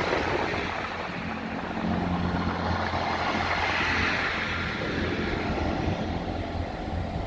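Diesel passenger train running at the platform: a steady low engine hum under a wash of noise that swells and fades about halfway through.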